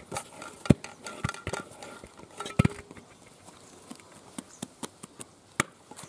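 Utensils and a metal bowl clinking and knocking while chapati dough is mixed: scattered sharp knocks, the loudest about a second in and again near the middle.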